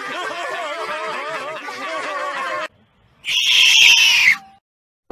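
Several cartoon voices laughing together, which cut off suddenly; after a short gap a marmot gives one loud, shrill scream lasting about a second, its pitch sagging at the end.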